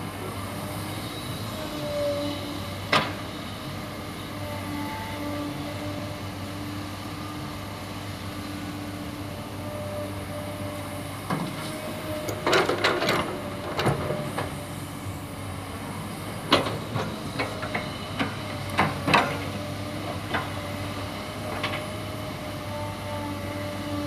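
Excavator and dump-truck diesel engines running steadily. About halfway through, a rush of red soil and clods tips from the excavator bucket into the steel dump-truck bed, followed by a string of sharp knocks from the bucket.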